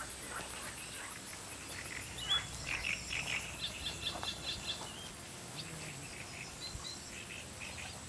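Small birds chirping and singing over a steady high insect hum with fast, fine ticking; a run of quick, high chirps is loudest from about two to five seconds in.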